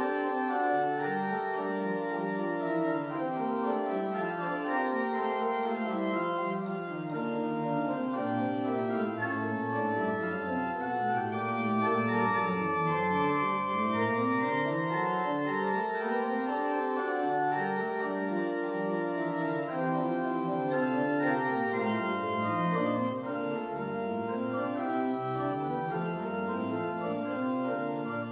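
Church organ playing steadily: sustained chords above, with lines in the lower range moving up and down through the notes.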